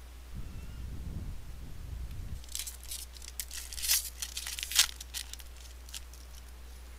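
A foil trading-card pack wrapper being torn open and crinkled, heard as a quick run of sharp crackles from about two and a half seconds in to about five seconds. Before it there is a soft, low rubbing of cards being slid across the table.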